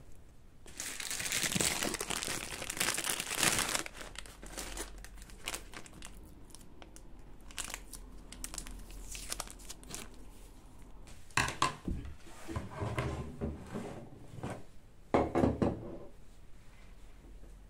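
Rustling and crinkling handling noises: a fluffy duster brushed over ornaments on a cabinet, then a roll of adhesive tape handled, with a few knocks as things are moved and set down.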